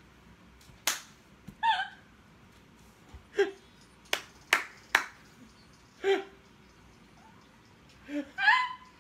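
People laughing in short, high-pitched bursts with gaps between them, and about four seconds in a run of three sharp hand claps.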